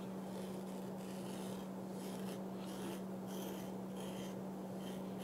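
Faint, irregular light scraping strokes of a folding pocketknife blade drawn across coat fabric, shaving off pills. A steady low hum runs underneath.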